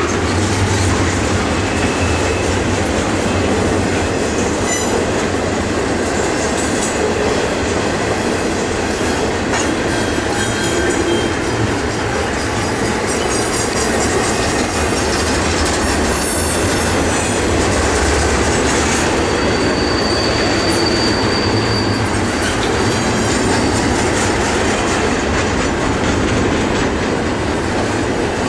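Loaded double-stack container well cars of a CSX intermodal freight train rolling past, a steady rumble of steel wheels on rail with a few brief high wheel squeals.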